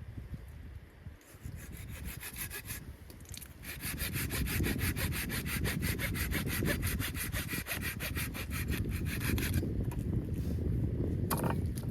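Hand saw cutting wood in quick, even strokes. It pauses briefly about three seconds in and stops a couple of seconds before the end.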